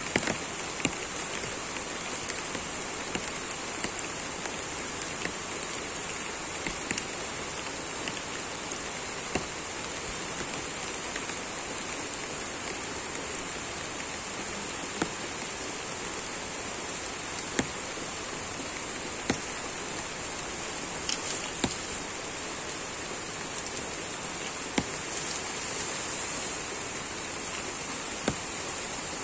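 Steady rain falling on forest vegetation, with scattered sharp raindrop taps every few seconds.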